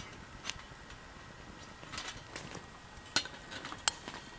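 Stainless-steel folding wood stove and moka pot clinking, as the stove's metal pot-support plates are slid into place and the pot is set on them. There are five or so sharp metallic clicks, the loudest two a little after three seconds and near four seconds in.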